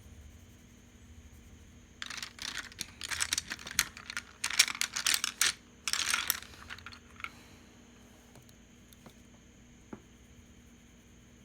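Clattering and clicking of small hard objects being handled, for about five seconds, then one faint click near the end.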